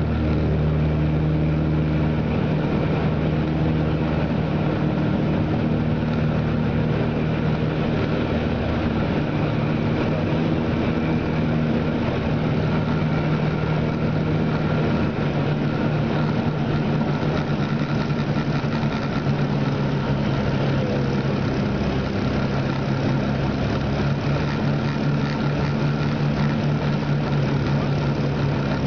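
Piper Seneca II's twin turbocharged six-cylinder piston engines and propellers running steadily in cruise flight, heard from inside the cockpit as a constant low drone.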